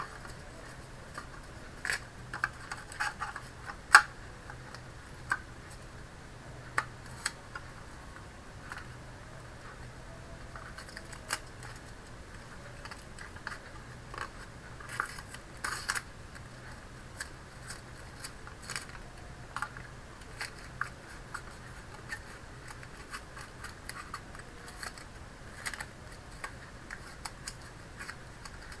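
Scattered light clicks, scrapes and rustles of hands working with paper masking tape inside an all-in-one PC's casing, over a faint low hum.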